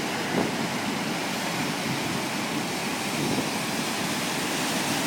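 Ocean surf breaking and washing on a beach: a steady rushing noise.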